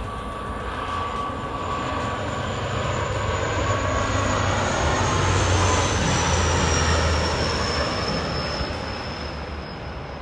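Dash 8 turboprop airliner passing low overhead on landing approach: a low propeller drone and engine whine that build to a peak past the middle and then fade. The high whine slides down in pitch as the aircraft goes by.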